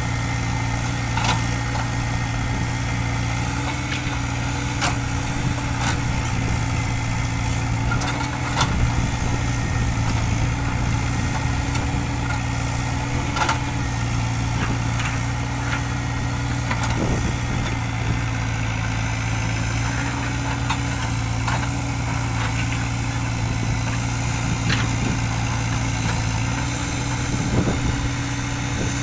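Diesel engine of heavy earthmoving machinery running steadily at a constant pitch, with scattered short knocks.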